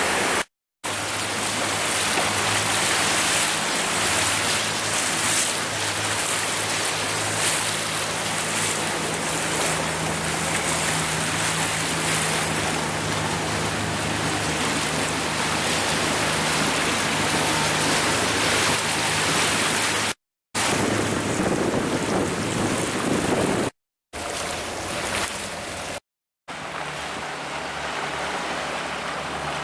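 Water rushing past the hull of a moving motorboat, with wind buffeting the microphone and a steady low engine drone underneath. The sound cuts out abruptly for a moment a few times.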